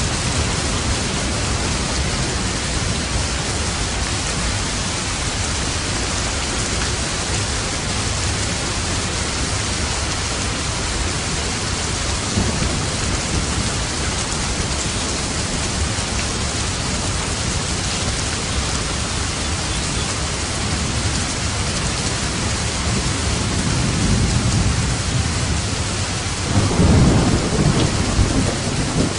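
Steady rain with a low rumble of thunder underneath. Near the end, a louder roll of thunder swells up.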